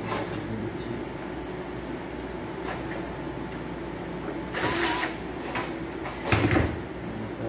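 Cordless drill-driver running in two short bursts about a second and a half apart, driving screws into a metal amplifier chassis.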